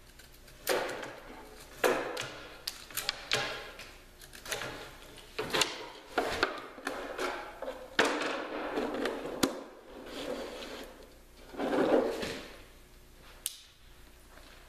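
Penknife shaving slivers off a thin wooden kayak strip in a run of short, irregular scraping strokes. After that the wood strip is handled and rubbed against the strip-built hull as it is fitted, with one sharp click near the end.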